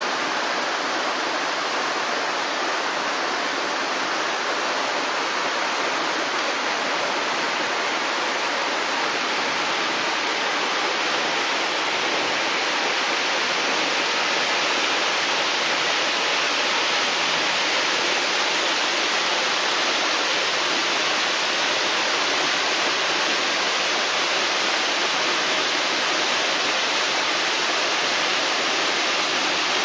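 Steady rush of water falling from a concrete dam, an even, unbroken noise.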